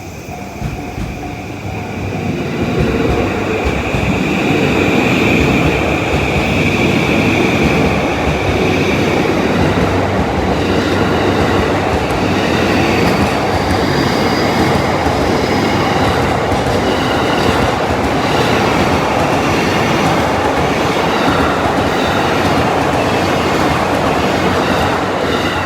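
JR East E235 series 1000-subseries electric train passing close by while accelerating. The train noise builds over the first couple of seconds, holds loud and steady for about twenty seconds, then drops away near the end as the train clears.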